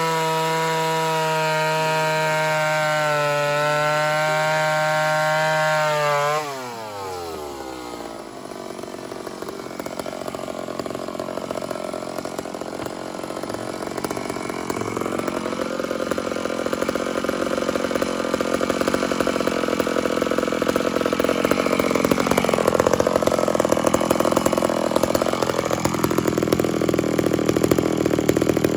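Ported Homelite chainsaw running at full throttle with a steady high pitch. About six seconds in, the engine pitch drops sharply as the chain bites into wood. It then cuts under load, with the noise of the chain in the wood, its pitch wavering and the sound growing louder toward the end.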